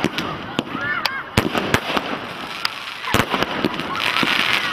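Fireworks going off at a display: a string of sharp bangs in quick succession, the loudest a little after three seconds in, with a hissing crackle near the end.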